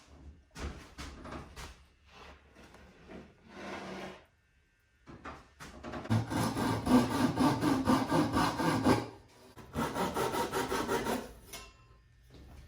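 Rubbing on wood in three stretches: a first stretch, a longer and louder one in the middle, and a short one near the end.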